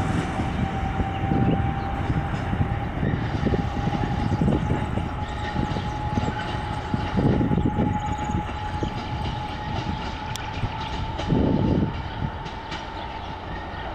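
MÁV M41 diesel-hydraulic locomotive hauling passenger coaches as it pulls away: a steady whine slowly rising in pitch over a rumble, with the wheels clattering over rail joints and points in several heavier bursts, the whole growing quieter as the train draws away.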